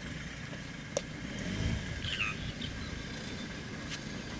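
Low steady rumble of an idling safari vehicle engine, with a bird chirping briefly about two seconds in.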